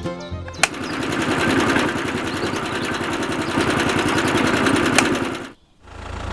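A small motor running with a fast, even buzzing rattle, starting about half a second in and cutting off abruptly near the end. A lower steady hum follows just after.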